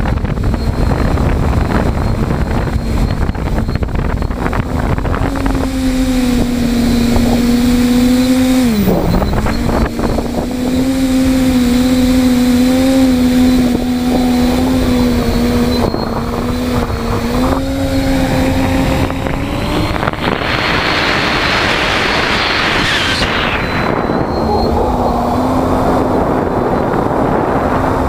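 TBS Discovery quadcopter's electric motors and propellers humming steadily in flight, heard from the GoPro it carries, over wind noise on the microphone. About nine seconds in the hum dips sharply in pitch and recovers. Near the end a rushing wind sound swells and cuts off suddenly, and the hum comes back.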